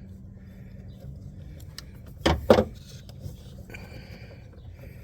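Hand work on the plastic coolant reservoir and its mounting: light handling noise with two sharp knocks in quick succession a little after two seconds in.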